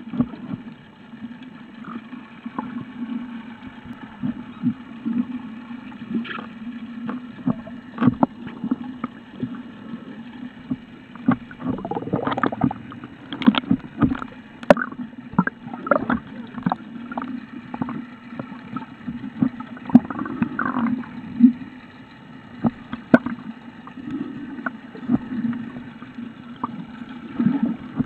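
Muffled underwater sound picked up through a camera's waterproof housing: a steady low water rumble with frequent sharp clicks and knocks.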